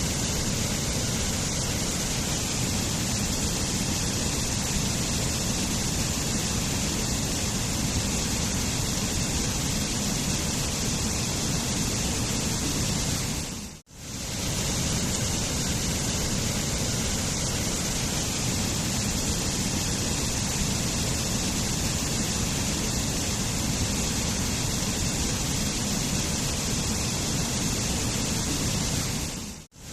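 Waterfall rushing steadily. The sound dips out and straight back in briefly about halfway through and again just before the end.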